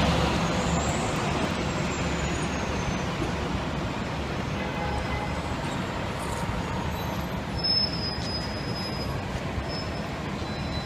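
City street traffic: a box truck's engine passing close, its rumble fading over the first few seconds into steady traffic noise.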